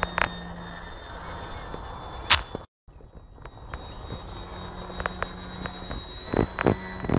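Distant whine of a Multiplex FunCub model plane's electric motor and propeller, heard as faint steady high tones over background noise. Several sharp clicks and knocks cut through it, and the sound drops out completely for a moment.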